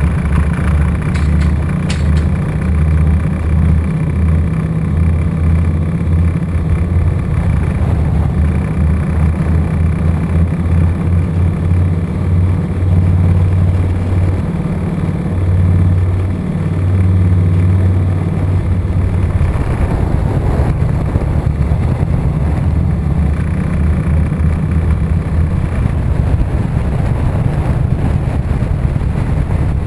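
Motorcycle engine running at low road speed, a steady deep rumble whose pitch shifts now and then as the throttle changes, over a constant rush of road and wind noise.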